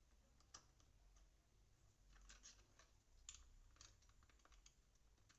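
Faint, scattered clicks and taps of a small plastic camera mount being handled and fitted onto the camera, a few clicks about two to four seconds in.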